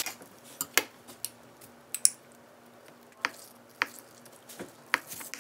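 Plastic bag rustling over a cutting board, then a knife slicing cod liver on it: sharp taps of the blade on the board, about one every second.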